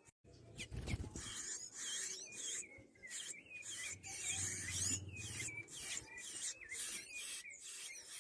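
Sanhaço (tanager) singing a long run of short, squeaky, wavering notes, over rasping hisses that repeat a little over twice a second.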